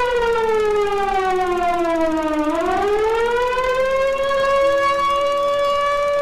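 Air-raid siren wailing an alarm: its tone slides down for about two and a half seconds, then climbs back up and holds steady.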